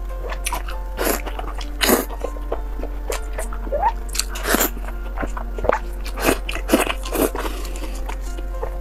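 Close-up eating sounds: several wet bites, slurps and chews into soft stewed lamb tripe stuffed with lamb brain. Steady background music plays underneath.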